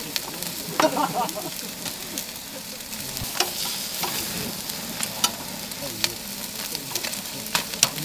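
Chicken sizzling on a hot grill grate over open flames, a steady hiss, with sharp clicks of metal tongs against the grate and meat every second or so.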